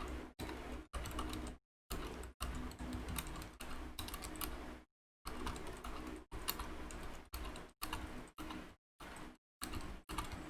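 Typing on a Rakk Lam-ang Pro mechanical keyboard fitted with Outemu gray/white silent switches, unlubricated and with stock stabilizers. The keystrokes come in runs with brief breaks.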